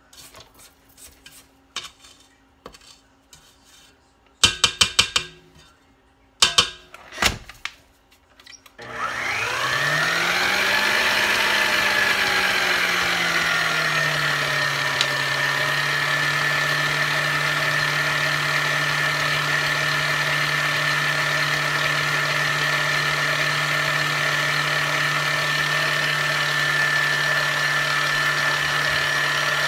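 A few knocks. About nine seconds in, an electric mixer switches on; its motor pitch climbs and settles over a few seconds, then it runs steadily, mixing cake batter.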